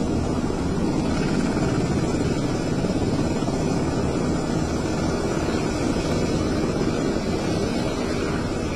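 Steady loud engine drone with wind buffeting the microphone.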